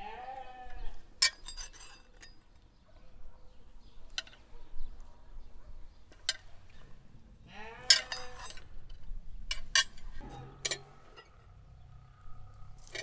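Metal hooks and rods clinking sharply against each other and against a ceramic plate as smoked chickens on wire hooks are lifted off a barrel smokehouse, about a dozen separate clinks. A farm animal bleats twice, at the start and about eight seconds in.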